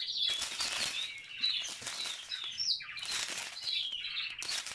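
Pet birds chirping in quick, short high notes, over the crinkle and rustle of small plastic zip bags being handled.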